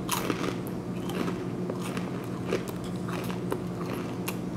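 Close-up crunching as a mouthful of Gardetto's pizzeria-flavored snack mix (hard pretzels, breadsticks and bread chips) is bitten and chewed, in irregular crisp crunches.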